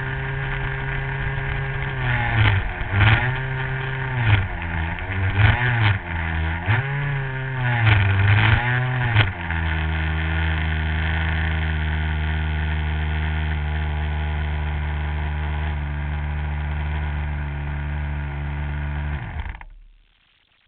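RC model airplane's engine running on the ground. Its pitch rises and falls several times over the first nine seconds, then settles to a steady, lower idle. It dies away near the end.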